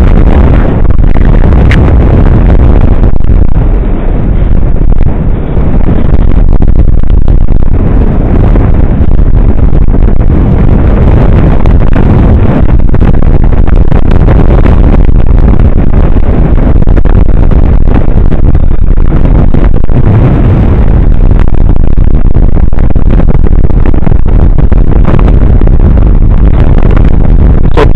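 Wind buffeting the microphone of a paraglider's camera in flight: a loud, distorted, unbroken rumble and rush.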